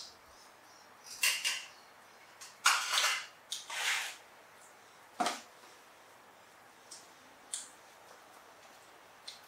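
Short, irregular clatters and rustles of a clear plastic food tub being handled as a young monkey rummages in it and climbs onto its rim, loudest about three to four seconds in.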